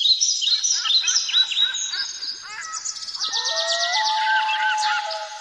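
Several birds chirping and calling together in quick, overlapping repeated chirps. A long steady whistled note joins in about three seconds in.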